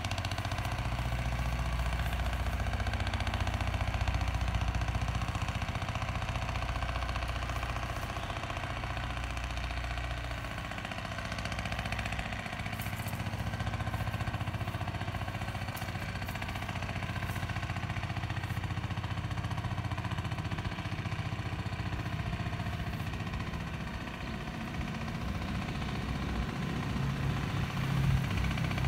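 An engine running steadily, a continuous low hum with level tones above it.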